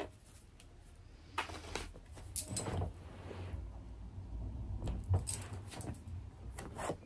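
A deck of oracle cards handled between the hands: a scatter of light snaps and slides as the cards are flicked and pushed against each other.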